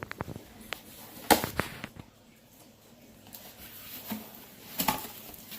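Cardboard packaging being pulled open and handled: a few quick clicks, two loud snaps about a second and a half in, and another crackle near the end.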